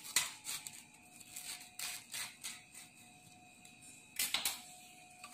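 Table knife cutting through a crisp toasted sandwich on a plate: a run of small, sharp crunching crackles as the toast breaks, with a louder crunch a little past four seconds in.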